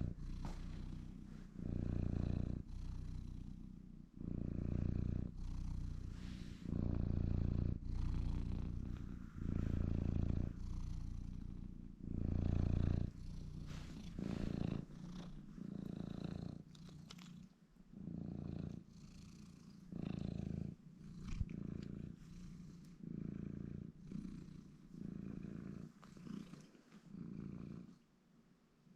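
Domestic cat snoring loudly in its sleep, a low rumble on each breath. The rumbles come about every two and a half seconds at first, then quicker, about once a second, in the second half.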